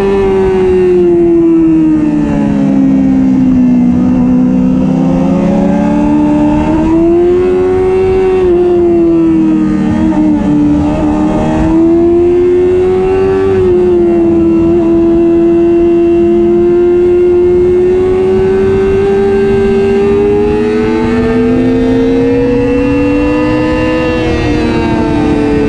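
Supersport motorcycle engine running hard on track, heard from on board with wind rush: its pitch falls over the first few seconds, climbs again, dips briefly about ten seconds in, then holds high and steady before falling again near the end.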